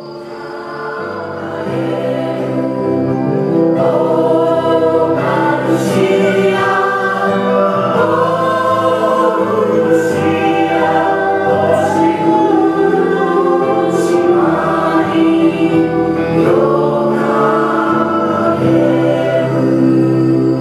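A choir of many voices singing slow, sustained chords, swelling in over the first few seconds.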